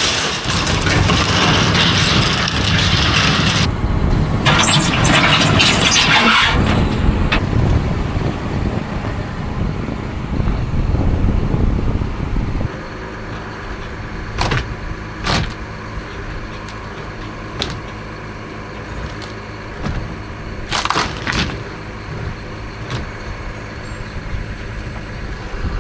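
A farm machine's engine running with loud rushing hiss for the first several seconds. It then settles to a steady, quieter hum about halfway through, with a few sharp knocks.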